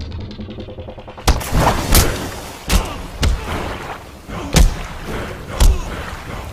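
Film fight sound effects: a series of about six heavy punch and kick impacts, each a sharp hit with a deep thud, starting a little over a second in.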